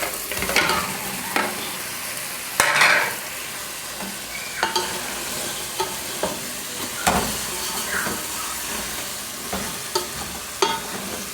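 Food sizzling in a cooking pot of tomato and onion sauce while a spoon stirs it, scraping and knocking against the pot several times.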